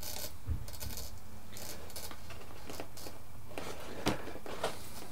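Light clicks, scrapes and handling noises of small plastic parts as a ball-joint and clip control linkage is fitted to a foam RC plane, with a low thump about half a second in and sharper clicks about four seconds in. A steady low hum runs underneath.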